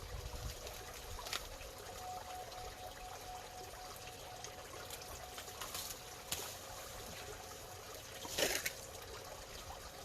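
Water bubbling and trickling steadily, with a faint steady hum under it and a brief louder burst of sound a little past eight seconds in.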